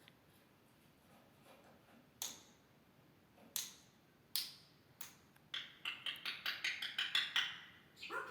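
African grey parrot making sharp clicking sounds: four single clicks spread about a second apart, then a fast run of about a dozen clicks, ending in a short rising call.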